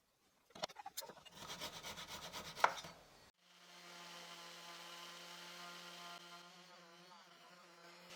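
Quick, rhythmic rubbing strokes on wood, like hand sanding or filing, for about three seconds. They cut off abruptly and a steady low hum with overtones takes over.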